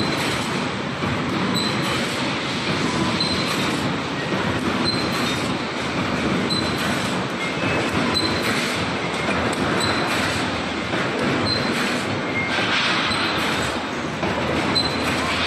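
Wire mesh welding machine running steadily, its mechanical noise broken by a short high tone that repeats about every one and a half seconds as the machine cycles.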